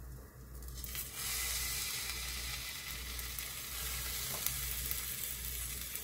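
Oil sizzling in a hot rectangular egg-roll pan as thin Korean zucchini (aehobak) slices are laid in, the sizzle swelling up about a second in and then holding steady.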